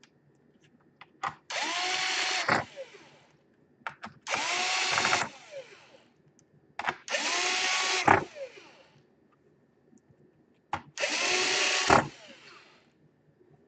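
Electric screwdriver driving four screws into a laptop chassis. It makes four short whirring runs of about a second each, rising in pitch as it spins up, and each ends with a click as the screw seats. Light knocks come between the runs.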